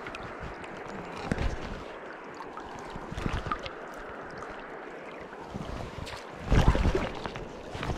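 Steady rush of river water around a wading angler, with rustling swishes as he fly-casts; the loudest is a heavy brush and buffet about six and a half seconds in, as the casting arm sweeps right across the microphone.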